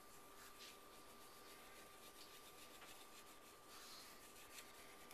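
Near silence, with faint rubbing from a dry-erase marker's eraser cap wiping marker writing off a frame coated in IdeaPaint dry-erase paint.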